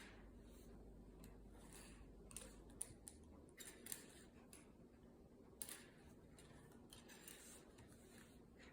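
A cat biting and chewing a plastic ring: faint irregular clicks and short crackly scrapes of teeth on plastic, a few a second at times, with pauses between.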